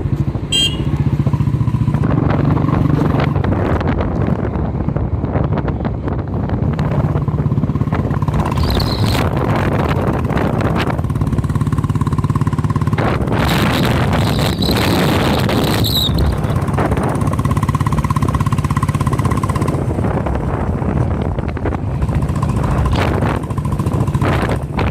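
A motor vehicle's engine running steadily while travelling, with a louder stretch of rushing noise for a few seconds around the middle.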